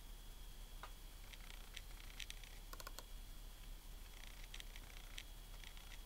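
Faint, scattered plastic clicks as a Macintosh PowerBook 5300cs laptop is operated by hand, some coming in quick pairs, over a faint steady high whine.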